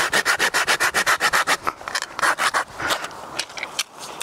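A small hand saw cutting through a wooden stick with quick back-and-forth strokes, about six a second. The strokes turn slower and uneven and stop near the end.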